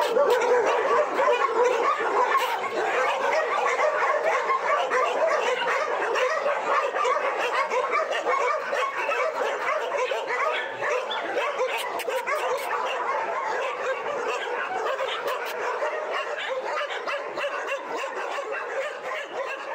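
Many shelter dogs in chain-link kennels barking and yelping all at once, a continuous overlapping din that eases off slightly toward the end.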